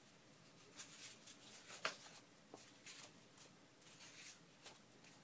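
Faint rustling and light handling of paper sheets as they are picked up and laid down on a pile, with one sharper tap about two seconds in.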